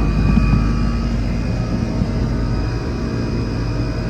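Old Goodman 3-ton central air conditioner's outdoor condensing unit running steadily: the condenser fan with the hum of its piston-type compressor, which has been recharged with refrigerant and is cooling normally.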